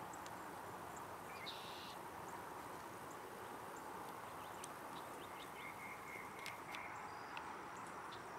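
Faint outdoor ambience: a steady wash of low background noise with a few short bird chirps, one about a second and a half in and a brief thin note around six seconds in.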